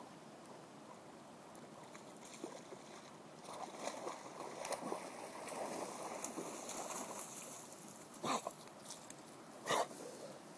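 A dog swimming and wading through shallow river water, splashing. Two short, sharp sounds come near the end, about a second and a half apart.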